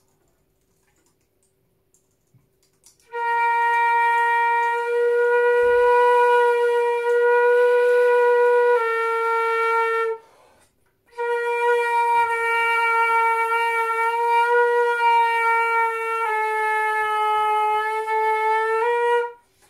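Concert flute playing a long held B-flat twice, about seven seconds each with a short break between, starting about three seconds in. Partway through each note the pitch steps slightly lower as the flute is rolled on the lip, changing its tuning, and there is audible air in the tone.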